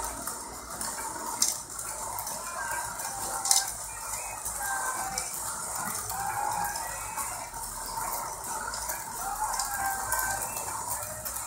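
Orphan Espresso Pharos hand grinder being cranked, its conical burrs crushing coffee beans with a continuous crunching rattle. Two sharper cracks come in the first few seconds.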